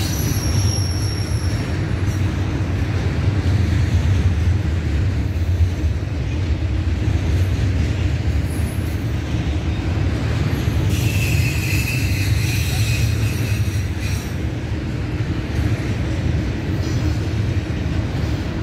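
BNSF double-stack intermodal freight train rolling past, its well cars' wheels making a steady low rumble on the rails. About eleven seconds in, a high wheel squeal rises over it and holds for about three seconds before fading.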